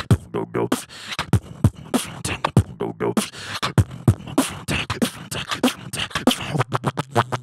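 Human beatboxing: a fast, steady beat of vocal kick drums about three a second, with snare and hi-hat sounds between them.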